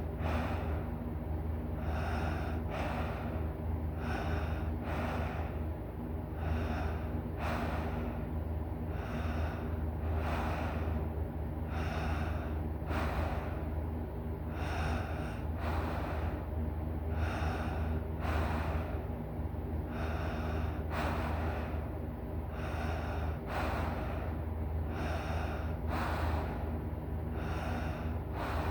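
A person snoring heavily in deep sleep: noisy breaths in and out, a pair about every two seconds, over a steady low hum.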